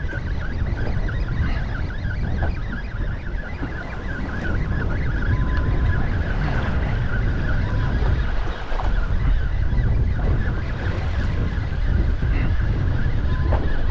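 Wind buffeting the microphone as a low rumble, with a steady thin high whirr running underneath that fades near the end.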